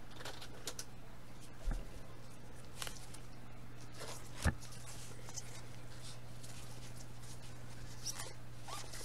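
Gloved hands handling a stack of football trading cards: short scraping and rustling sounds of cards sliding against each other. There are two dull knocks, the louder about four and a half seconds in, over a steady low hum.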